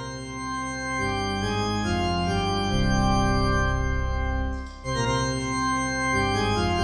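Organ music: held chords that change about once a second, with a brief break a little past the middle.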